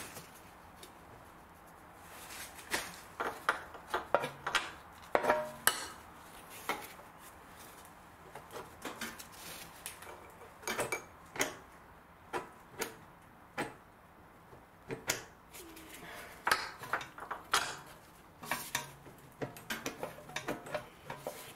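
Irregular metallic clinks and knocks as a bolt and a new Audi A4 front lower control arm are wiggled and pushed to line the arm up with its mount.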